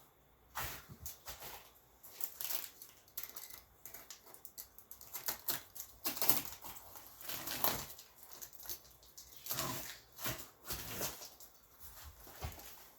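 Box cutter slicing through the packaging of a cardboard shipping box: irregular scrapes and rustles, in uneven strokes.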